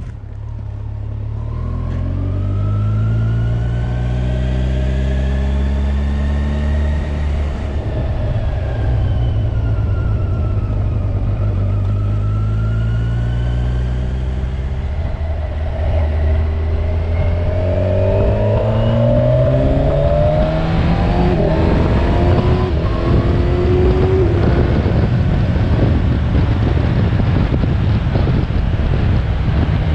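Kawasaki Ninja 1000SX's inline-four engine pulling away and accelerating, its pitch climbing and falling with the throttle and gears. A broad rushing noise grows as the speed builds in the second half.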